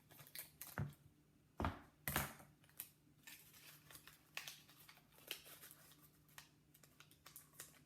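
Paper and sticky tape being handled: faint crinkling and small clicks as pieces of paper are taped together, with two louder knocks about two seconds in.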